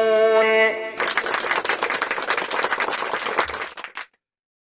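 A woman's voice holds the long final note of a Qur'an recitation, ending just under a second in. Then applause, many hands clapping, which cuts off abruptly about four seconds in.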